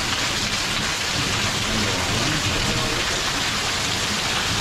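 Heavy rain pouring down steadily, a dense even hiss of rain on surfaces.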